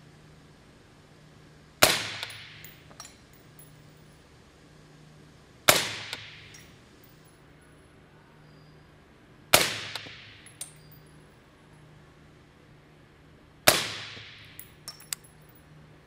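Four suppressed shots from a .223 REM AR-15-pattern rifle firing subsonic 55 gr ammunition through a SilencerCo Hybrid 46 suppressor, about four seconds apart. Each is a sharp crack with a short ringing tail, followed by a few light clicks.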